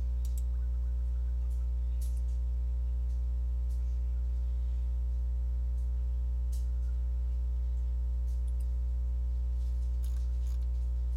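Steady low electrical hum with a stack of evenly spaced overtones, broken only by a few faint clicks.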